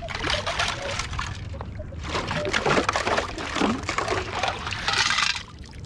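Water sloshing and pouring as a metal detector target is dug out of shallow water and the dug material is lifted and drained, with gushes about two seconds in and again near the end.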